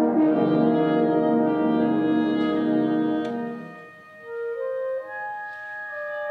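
Concert band playing: full, brass-heavy held chords that die away about three and a half seconds in, followed by a quiet passage of a few soft, high held notes.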